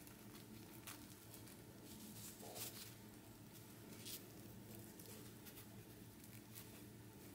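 Near silence: faint room tone with a low steady hum and a few scattered faint clicks.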